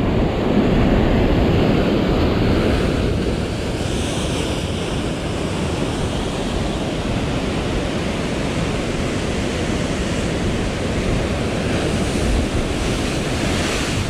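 Heavy surf breaking and washing over a rock ledge, with wind buffeting the microphone. The wash swells louder around four seconds in and again near the end.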